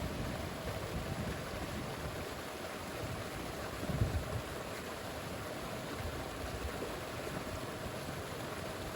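Steady rush of a river running high after heavy rain, with a low thump about four seconds in.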